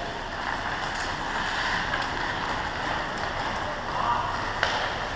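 Ice hockey game in an indoor rink: a steady wash of arena noise, a short distant shout about four seconds in, and a single sharp knock about half a second later.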